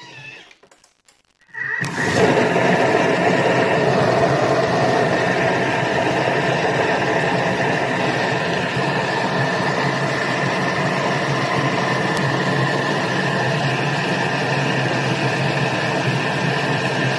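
Vorwerk Thermomix motor starting up about two seconds in, then running steadily at speed 5 with a steady whine as its blade mixes the batter. Faint clicks come first, as the speed dial is turned.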